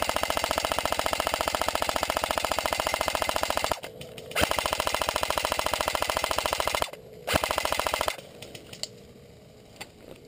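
AK-74S airsoft electric gun firing full-auto in three bursts: a long one that stops just under four seconds in, a second of about two and a half seconds, and a short third one about seven seconds in. After the bursts only faint scattered ticks remain.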